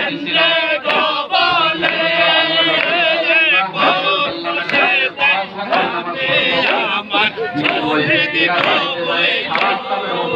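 Crowd of men chanting a Sufi zikr together, many voices overlapping.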